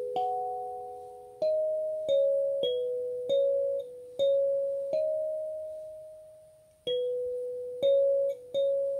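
Wooden kalimba played with the thumbs: single plucked metal tines picking out a slow melody, one note at a time. Each note rings on and fades, and one is held longer before the tune resumes.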